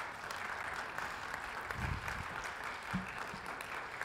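Congregation applauding: a steady patter of many hands clapping, with a couple of low thuds about two and three seconds in.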